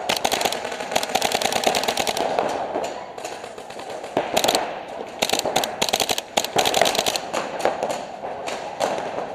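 Paintball markers firing in fast streams of shots, many per second, in several long runs that stop and start, densest at the start and again in the middle.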